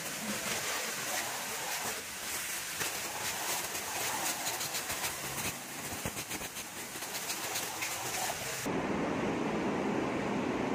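Water spray hitting a car's AC condenser and bumper grille, a steady hiss with spatter. Near the end it cuts abruptly to a steadier, lower rushing noise.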